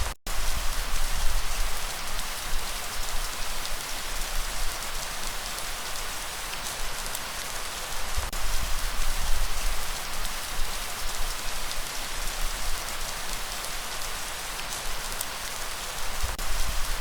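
Steady rain falling, with a low rumble of breeze underneath. The sound cuts out completely for a split second just after the start.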